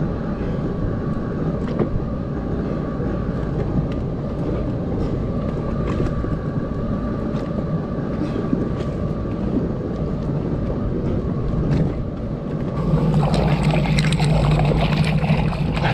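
Jet ski engine idling steadily. About thirteen seconds in, a louder rush of splashing water joins it.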